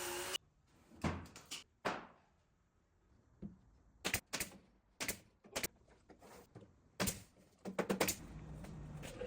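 A steady machine noise cuts off abruptly about half a second in. After it come scattered short knocks and clicks in small clusters, like tools and workpieces being handled in a woodworking shop.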